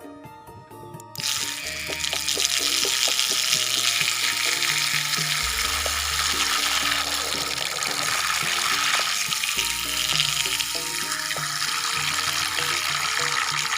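Steady rushing and splashing of water that starts suddenly about a second in, over quiet background music.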